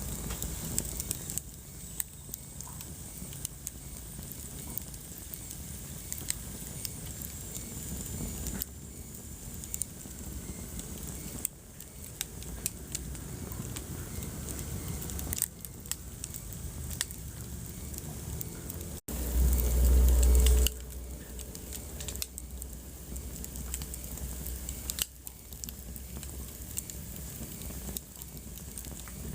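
Wood fire crackling, with frequent small sharp pops over a steady low rush of burning. About nineteen seconds in, the sound cuts out for an instant and a loud low rumble follows for under two seconds.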